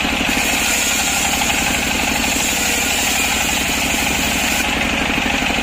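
Petrol chainsaw running steadily at a constant speed, ripping a freshly felled, still-wet breadfruit log lengthwise.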